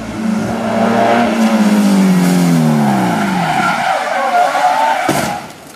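A Ferrari 308 rally car's V8 engine runs hard, its note held and then falling over about two seconds. Its tyres then skid and squeal on wet tarmac as the car slides sideways, with a sharp knock near the end.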